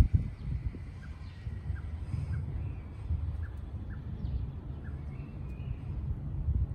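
Outdoor ambience: an uneven low rumble with a sharp bump right at the start, and faint short bird chirps scattered through it about once a second.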